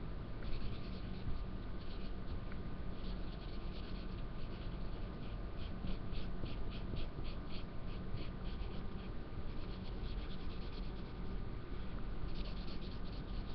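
Felt-tip marker scribbling back and forth on paper, a run of short scratchy strokes at about three a second, with a stronger stretch in the middle and another near the end.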